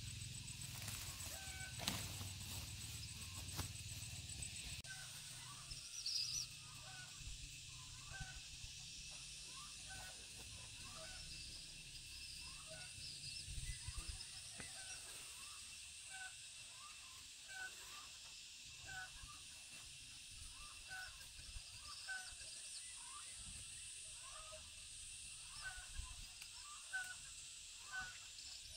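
Short animal calls, repeated about once a second, with a steady high hiss behind them.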